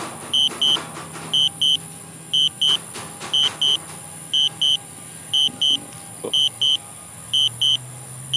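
Drone remote controller beeping in quick pairs about once a second, the alert that the DJI Spark is on Auto Return to Home, over a low steady hum.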